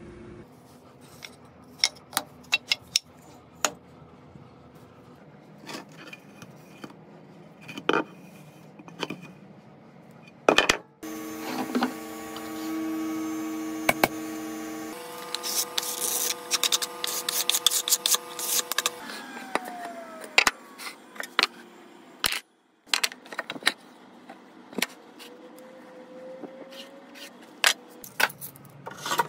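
Clamps, tools and a wooden board being handled on a workbench: a run of sharp clicks, knocks and metallic clinks. About eleven seconds in a machine starts a steady pitched hum, shifts pitch partway and stops after about eight seconds.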